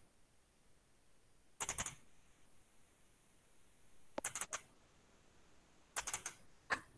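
Computer mouse clicking in four short groups of quick clicks, separated by quiet stretches.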